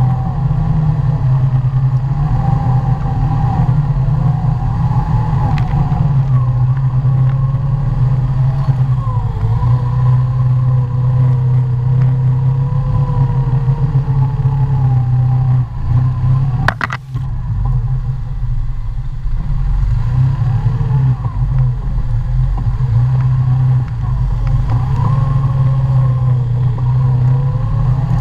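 ATV engine running continuously while riding a rough trail, its pitch rising and falling with the throttle. About seventeen seconds in the sound briefly drops, with one sharp knock.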